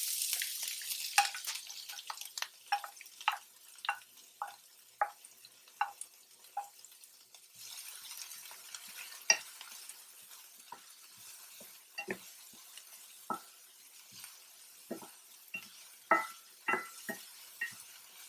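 Chopped onions and green chilies sizzling in hot oil in a pan, the loud sizzle dying down over the first two seconds. Then a spoon or spatula repeatedly knocks and scrapes against the pan as they are stirred, over a fainter continuing sizzle.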